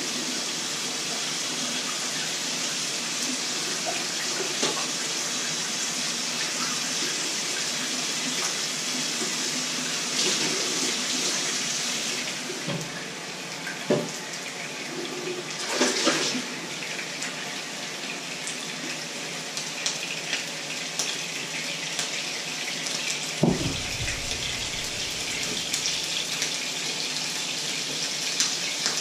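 Kitchen tap running steadily into a sink while dishes are washed, with a few sharp knocks of pots or dishes against each other.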